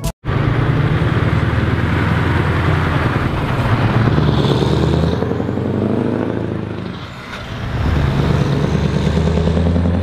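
Diesel engine of a Scania truck pulling a bulk tanker trailer, running steadily as it drives along the road. The sound eases off briefly about seven seconds in, then picks up again.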